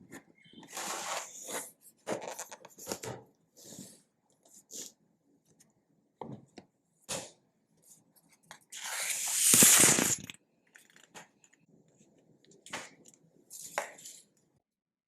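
Packaging being handled and torn open: a run of irregular rustles and crinkles, with one longer, louder tearing sound about nine to ten seconds in.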